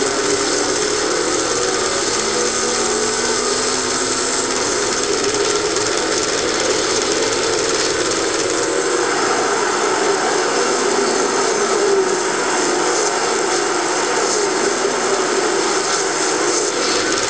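Recorded stock-car race engine noise from a Hot Wheels Legends to Life diecast display's built-in small speaker: a steady, dense engine sound with no voices over it.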